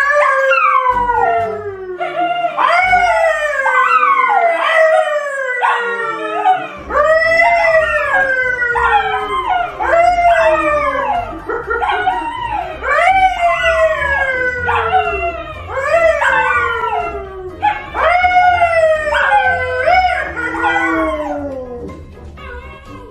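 A man and two dogs, a yellow Labrador retriever and a brown poodle, howling together: a string of overlapping howls, each sliding down in pitch, about one a second, dying away near the end.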